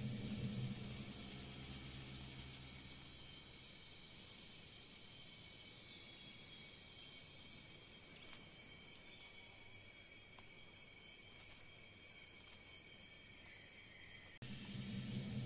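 Faint, steady chorus of insects trilling at a high pitch. A lower hum underneath is stronger for the first couple of seconds and comes back near the end.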